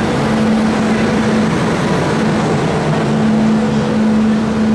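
Train station platform noise: a steady engine hum over a dense busy din, the hum dipping briefly about a second and a half in.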